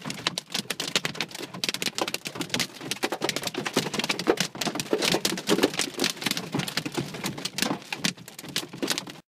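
Heavy rain mixed with hail pelting a car's roof and windshield, heard from inside the cabin as a dense, irregular patter of sharp hits. It cuts off suddenly near the end.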